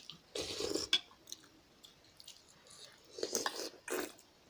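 Mouth sounds of someone chewing jhol momo, dumplings in spicy soup, in two short bouts about three seconds apart, with small wet clicks.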